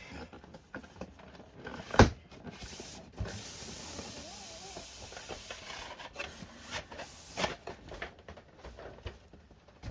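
A cardboard shipping box being opened and handled: a sharp knock about two seconds in, then a few seconds of rustling and scraping of packaging, with scattered small clicks and taps.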